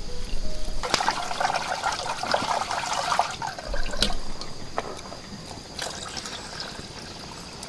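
Water pouring and trickling in a metal pot as rice is rinsed, loudest in the first few seconds. It is followed by a few light knocks of the pot and a quieter pour of the cloudy rinse water.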